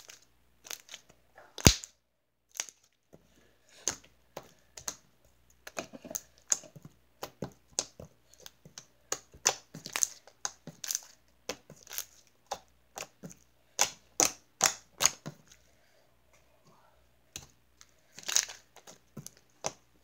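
Thick, slightly sticky slime being kneaded, folded and pressed by hand against a tabletop, giving an irregular run of sharp clicks and pops as air pockets in it burst, with one louder smack against the table just under two seconds in.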